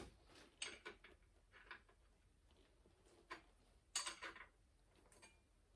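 Faint, scattered metallic clicks and clinks of hand work on a South Bend lathe's carriage as its taper attachment is disconnected, the loudest cluster about four seconds in.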